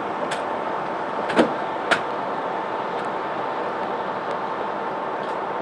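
Ambulance stretcher being pushed into the back of an ambulance, with two sharp metal clunks about a second and a half in as it rolls and locks into place. A steady running-engine and traffic background underlies it, with a faint steady tone.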